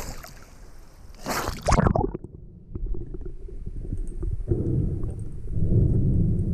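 A splash as the diver and camera go under about two seconds in. After that, everything sounds muffled, with a low underwater rumble of water movement and bubbles while a spearfisher dives and swims.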